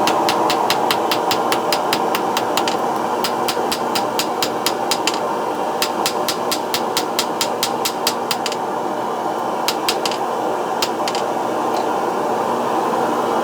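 Hammer blows on hot steel at the anvil, about three ringing strikes a second at first, then sparser with pauses, over the steady rush of a propane forge burner.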